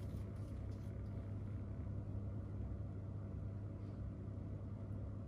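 Steady low hum with a faint rumble underneath, unchanging throughout: background room noise.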